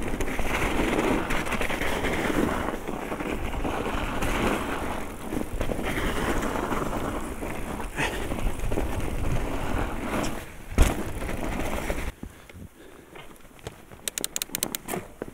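Mountain bike riding down a snowy trail: a steady rough noise of tyres running over snow, with a sharp knock about eleven seconds in. Just after, it goes much quieter as the bike slows, and a quick run of sharp clicks comes near the end.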